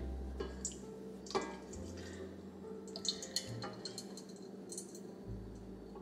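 Melted butter poured from a glass bowl into a stainless-steel mixing bowl, dripping and trickling faintly, with a few light clicks.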